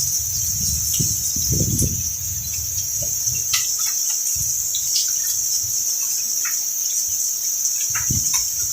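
Hailstorm: a steady hiss of falling hail and rain, with scattered sharp ticks of small hailstones striking hard surfaces, over a low uneven rumble.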